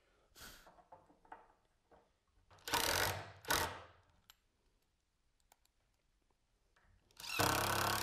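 Cordless drill driving wood screws through a metal bed-rail bracket, in short runs of the motor: two brief bursts about three seconds in, and a longer one near the end.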